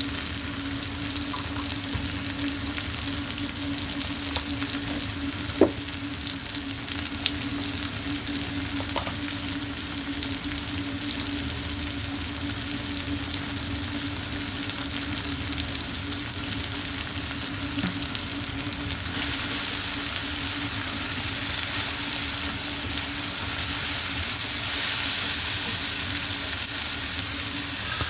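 Food frying in a pan, a steady sizzle with a few sharp utensil clicks, the loudest about six seconds in; the sizzle grows louder about two-thirds of the way through. A steady hum runs underneath.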